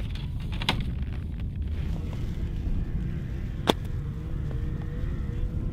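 Slingshot being shot, the released rubber bands giving a sharp snap about three and a half seconds in, with a fainter click earlier. A steady low rumble runs underneath.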